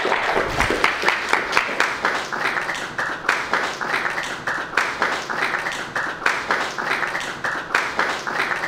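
Congregation applauding: many hands clapping together, with sharp individual claps standing out from the crowd.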